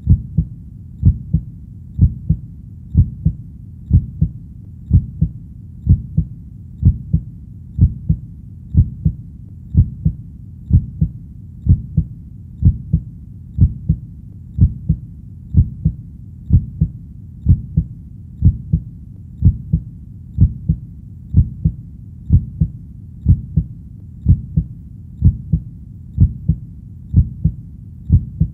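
Steady heartbeat, each beat a double lub-dub thump, at about one beat a second, over a constant low hum.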